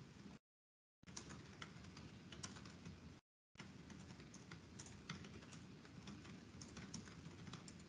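Faint typing on a computer keyboard: quick, irregular key clicks that cut out to dead silence for a moment about three seconds in, then carry on.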